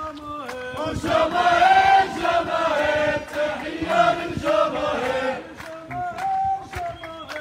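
A crowd of protesters chanting a slogan together, led by a single voice at the start and end, with steady rhythmic hand clapping.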